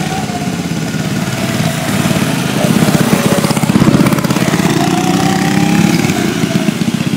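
A small mini bike engine running and revving up and down while the bike is ridden. It grows louder toward the middle and then eases a little.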